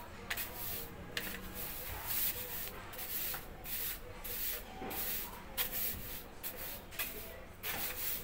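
Plastic-bristled broom sweeping a concrete floor: quick, irregular brushing swishes, about one or two a second.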